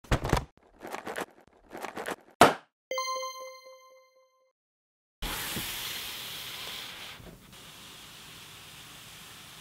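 Cartoon logo sound effects: four quick noisy hits, the last one loudest, then a bright bell-like ding that rings out for about a second and a half. After a short silence, a steady hiss of room tone begins about five seconds in.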